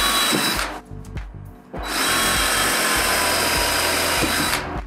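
Cordless drill driver running as it drives screws through an aluminium frame profile into a door panel: a short run that stops under a second in, then a longer run of nearly three seconds that ends shortly before the end.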